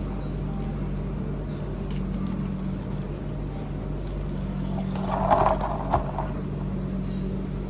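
Steady low mechanical hum of a vehicle interior, with a short louder mid-pitched sound about five seconds in.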